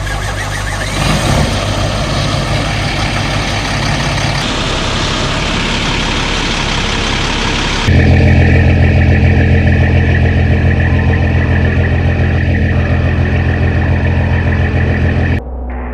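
Kenworth C500 heavy truck's diesel engine running, heard in edited segments that change abruptly about four and a half and eight seconds in. From about eight seconds it runs louder and steady, then cuts off suddenly near the end.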